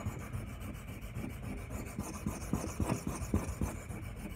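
A knife's D2 steel blade being sharpened on a 400/1000 grit combination whetstone, in quick back-and-forth push-and-pull strokes, about three a second, each a short gritty scrape.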